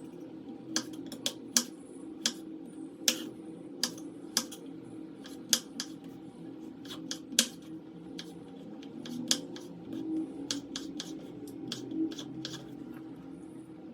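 Kitchen knife slicing raw potatoes on a cutting board: sharp, irregular taps of the blade striking the board, about one or two a second, over a low steady hum.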